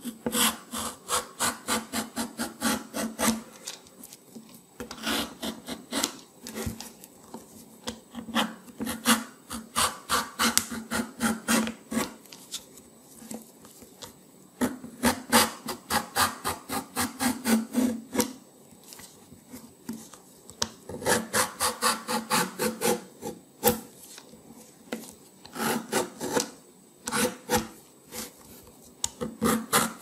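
Vegetable peeler scraping the rind off a winter melon, quick rasping strokes at about four a second in runs of a few seconds, with short pauses between runs.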